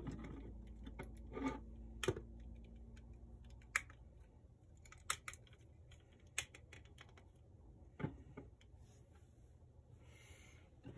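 Plastic model kit parts clicking and knocking as they are handled and fitted together: a scattering of sharp, irregular clicks over a low hum that fades about four seconds in.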